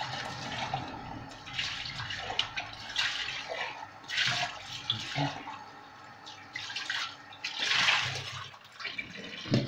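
Water running and splashing in a kitchen in several short, uneven bursts, the longest and loudest near the end.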